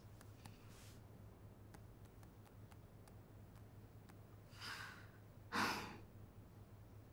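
A woman breathes out heavily twice near the end, the second sigh the louder, after a faint breath early on; a few faint light clicks are scattered between, over a low steady hum.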